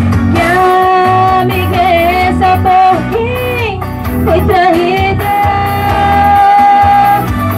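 A female voice singing a melody into a microphone over backing music, holding one long note near the end.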